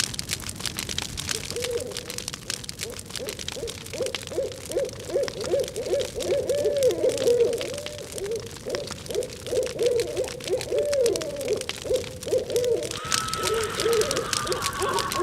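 A long run of short hooting calls, low in pitch and wavering up and down, over a constant dense crackle of small clicks. About thirteen seconds in, a steady higher whistle-like tone joins and slowly sinks in pitch.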